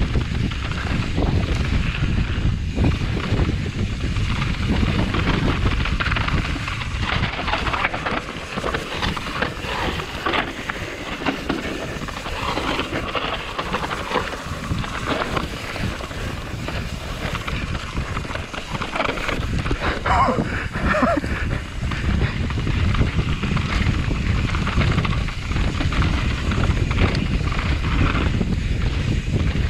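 Wind buffeting the microphone of a Kona Process 153 CR DL mountain bike ridden fast down a dirt trail, with the tyres on the dirt and the bike rattling and knocking over rough ground.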